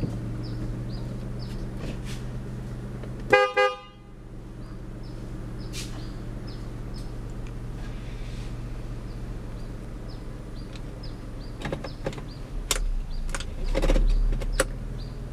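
A 2002 Proton Perdana's 2.0-litre V6 idles steadily. About three seconds in, the car's horn gives two short toots. Near the end there are several clicks and knocks as the automatic gear selector is handled.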